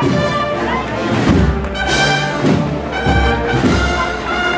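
Brass band playing a processional march, with held brass notes over a regular low drum beat.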